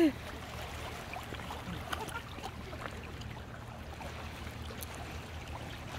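Shallow lake water lapping and splashing lightly around an inflatable boat and a wading man's legs, with faint scattered ticks and a steady low rumble underneath.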